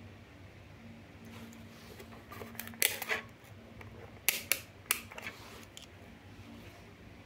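Sharp plastic clicks, first a short cluster about three seconds in and then three single clicks over the next two seconds: the rotary range dial of a handheld digital multimeter being turned through its detents. A faint steady hum runs underneath.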